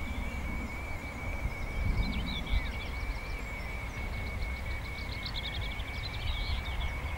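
Wind buffeting the microphone with low rumbles, over birds singing in short chirps and a rapid trill of repeated notes towards the middle and later part. A steady thin high whine runs underneath.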